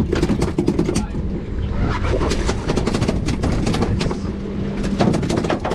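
Boat outboard motor running with a steady low drone and hum, under many sharp clicks and knocks from the fishing gear on deck.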